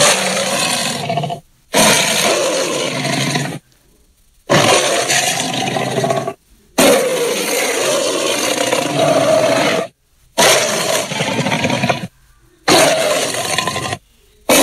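Fictional dinosaur roar sound effects for the Arkosaurus: six separate roars, each one to three seconds long, starting and stopping abruptly with short silences between them.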